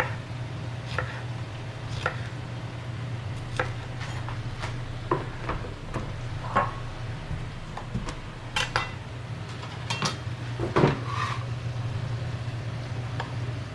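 Kitchen knife knocking on a cutting board in irregular strokes, about one a second, as serrano peppers are sliced into rounds. A few strokes near the end are louder, and a steady low hum runs underneath.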